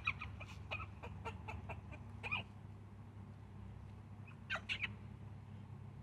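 Domestic hen clucking softly while being held: a run of quick low clucks, then a louder cluck with a falling pitch about two seconds in, and two or three short, sharper calls a couple of seconds later.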